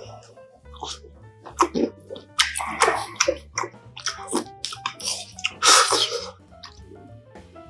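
Close-miked eating sounds: several loud wet slurps of hot, spicy dumpling-and-mushroom hotpot broth, with chewing in between, over quiet background music.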